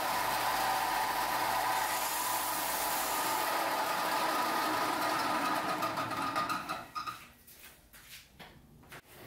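Power sander running steadily with a light whine, then shutting off and winding down about seven seconds in.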